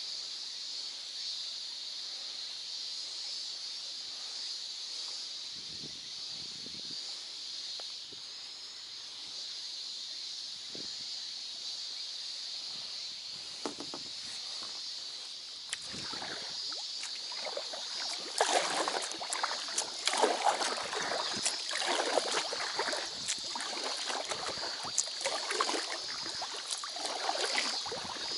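Paddle strokes splashing and dripping in the water beside an inflatable packraft. The splashes are sparse at first, then come thick and irregular from about two-thirds of the way in.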